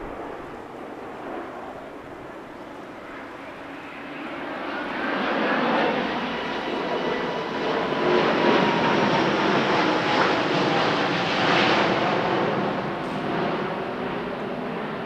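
Jet engine noise from an Airbus A350-900's two Rolls-Royce Trent XWB turbofans as the airliner flies past overhead. It grows louder about four seconds in, stays loud for several seconds and eases off near the end, with faint whining tones sliding slowly down in pitch.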